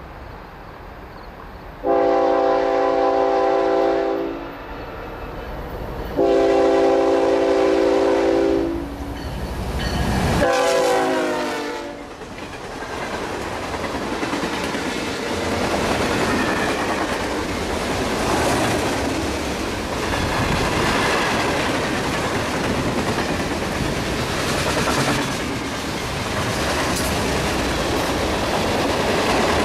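Freight locomotive air horn sounding two long blasts and a shorter third whose pitch drops as the locomotive passes. Then the freight cars roll past, wheels clacking steadily over the rail joints.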